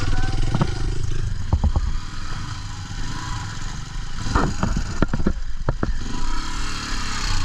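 Off-road motorcycle engine running at low speed, with a series of sharp knocks and clatters, a few near the start and a cluster in the middle, as the bike bangs over rough ground.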